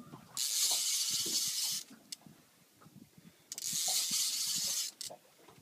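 Heavy sturgeon fishing reel whirring as it is cranked in two bursts of about a second and a half each, a couple of seconds apart, reeling line in on a big sturgeon between rod lifts.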